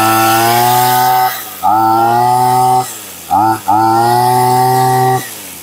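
Maruyama brushcutter's two-stroke engine revved hard from idle four times, the third only a short blip. Each rev climbs quickly in pitch, holds steady, then falls back when the throttle is released. The engine is running without its air filter.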